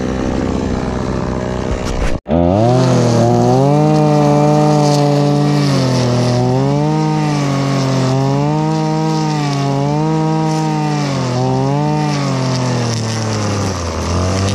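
Gas-powered string trimmer running at high speed, its engine pitch rising and falling about every second and a half as it is swung through grass. The sound breaks off briefly about two seconds in.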